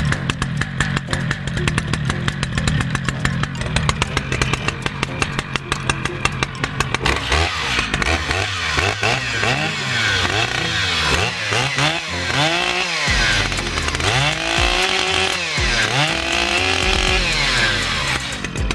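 Two-stroke chainsaw running steadily at low revs for several seconds, then revved up and let back down repeatedly, its pitch rising and falling with each burst of throttle.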